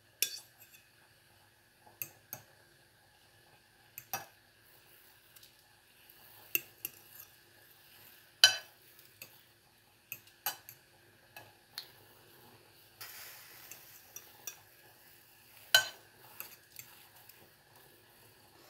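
A metal fork clinking and scraping against the pot as palitaw (glutinous rice cakes) are stirred and lifted out of boiling water, in sharp separate clinks every second or two, the loudest about eight seconds in. Faint bubbling of the boiling water underneath.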